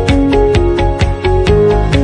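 Background music with a steady beat and plucked melodic notes.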